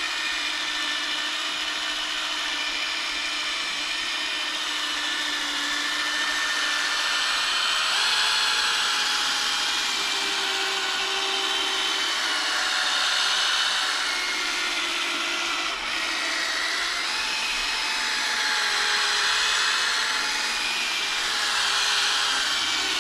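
Ryobi drill running at low speed, spinning a foam polishing ball against a plastic headlight lens. A steady motor whine whose pitch wavers slightly, with a rushing hiss over it.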